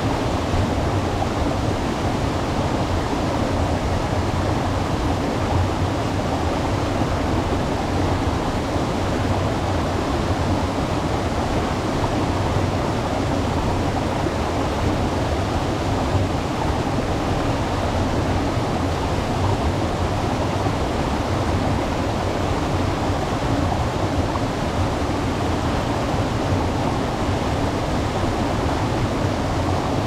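Waterfall: water pouring and splashing in a steady, deep rush that does not change.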